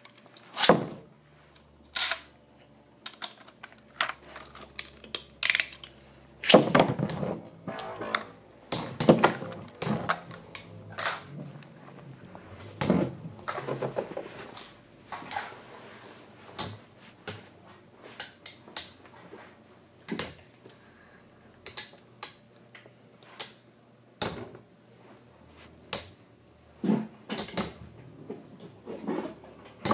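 Two Beyblade spinning tops, Thermal Pisces and Lightning L-Drago, battling in a plastic stadium: irregular sharp clicks and clacks as the metal-wheeled tops strike each other and the stadium.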